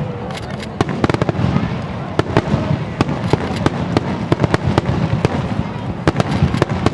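Aerial fireworks bursting in rapid, irregular succession: many sharp bangs close together over a steady low rumble.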